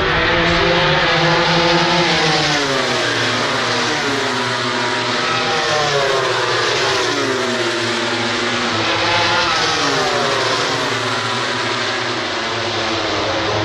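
Grand Prix racing motorcycles at full throttle down the straight. Their engine pitch climbs through each gear and drops back at every upshift, several bikes overlapping.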